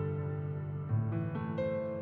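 Instrumental background music with slow, held notes, new notes entering several times in the second half.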